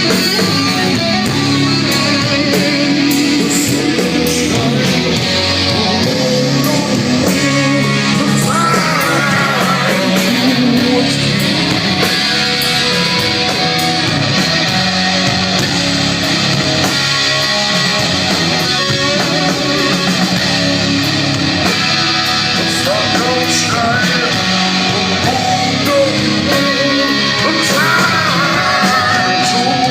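Heavy metal band playing loud and continuous at a sound check, with distorted electric guitars over bass and drums.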